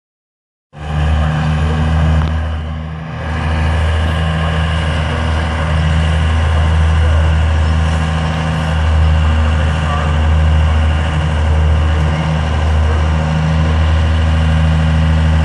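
Cummins diesel engine in a Ford truck running steadily at an even pitch, cutting in abruptly under a second in, with a brief dip in loudness about two to three seconds in.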